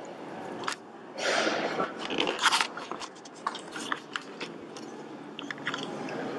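Rustling and crackling close to the microphone, with scattered sharp clicks, over the background noise of people moving about in a large hall.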